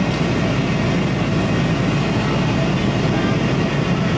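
Steady roar of an airliner cabin in flight: engine and airflow noise, loud and even throughout.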